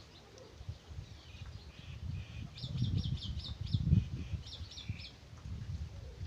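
A small bird chirping: a quick run of about six high chirps, then about four more a second and a half later, over an uneven low rumble.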